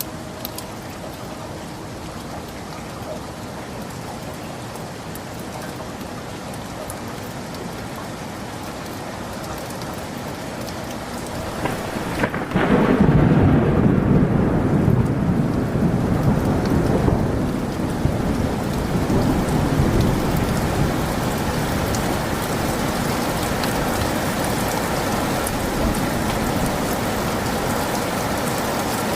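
Steady rain with a sudden thunderclap about twelve seconds in, rumbling for several seconds before fading back under the rain, which stays heavier afterwards.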